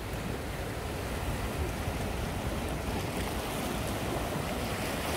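Sea surf washing and breaking against shoreline rocks, a steady rush of water, with a low rumble of wind on the microphone.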